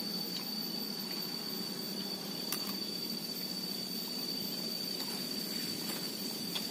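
Steady outdoor ambience dominated by a constant high-pitched insect drone held on one tone, over a low steady background haze, with a faint click about two and a half seconds in.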